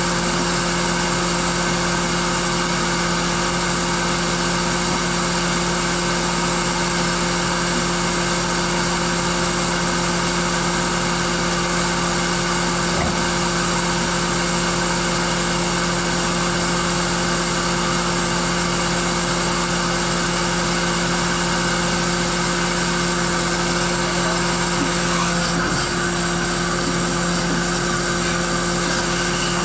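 Steady, unchanging machine hum of a fishing boat's engine-driven hydraulics running the power block that hauls the net up for stacking.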